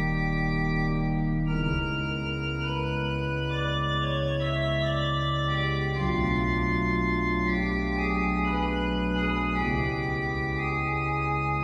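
Casavant pipe organ playing slow sustained chords over a deep held pedal bass, the harmony shifting about 2, 6 and 10 seconds in.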